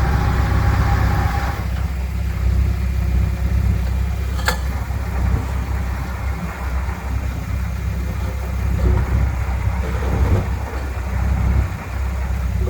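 Diesel engine of heavy earthmoving equipment running steadily, its sound mostly low-pitched, with more mid-range sound for the first couple of seconds. A single sharp click comes about four and a half seconds in.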